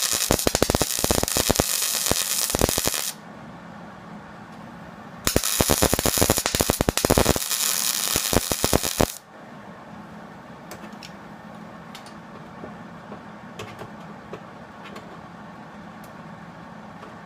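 Welding arc crackling through two plug welds on a truck's steel rocker panel, each lasting about four seconds with a short pause between them, followed by a few faint ticks.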